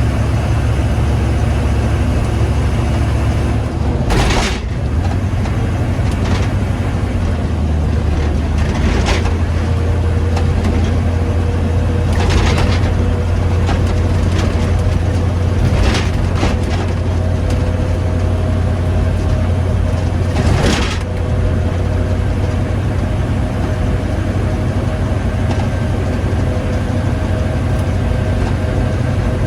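Humvee's V8 diesel engine running steadily on a drive, a deep drone whose note shifts about four seconds in and again about twenty-one seconds in. A few brief louder noises come over it at intervals.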